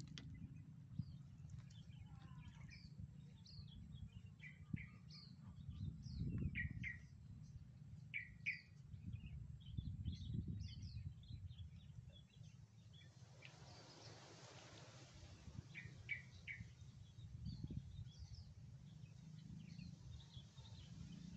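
Small birds chirping, short scattered calls throughout, over a faint low rumble.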